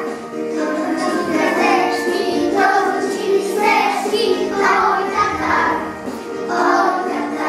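A children's song playing, with children's voices singing over a steady musical accompaniment.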